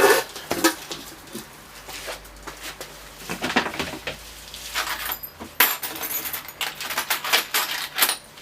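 Loose metal keys clinking and rattling as they are handled and tried in a lock cylinder, a string of small, irregular metallic clicks.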